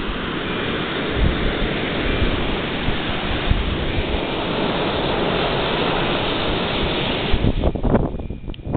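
Strong blizzard wind blowing across the microphone: a loud, steady rushing with low buffeting. It drops away suddenly about seven and a half seconds in, leaving a few gusty thumps.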